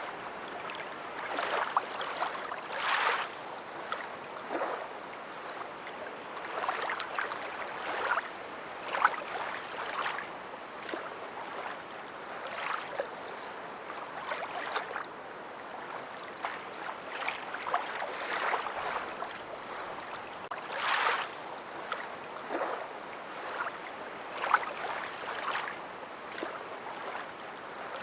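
Water splashing and lapping, with irregular splashes every second or two over a steady wash.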